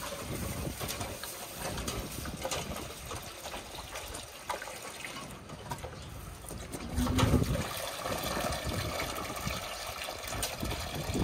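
Milk running from a feeding hose into a stainless-steel calf bowl, a steady trickling and splashing, with a brief louder low knock about seven seconds in.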